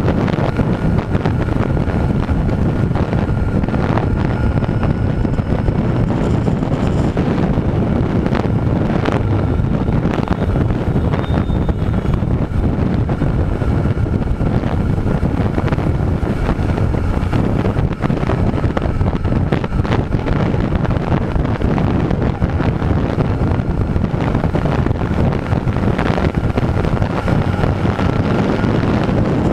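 Steady wind noise buffeting the microphone of a camera on a Honda CB1000R at highway speed, over a low, even rumble from the motorcycle and the road.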